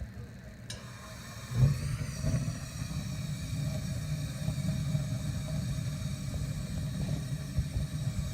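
Williams gas wall heater's main burner lighting about a second and a half in with a sudden whoosh, then burning with a steady low rumble and hiss: the heater firing up with its new thermocouple fitted.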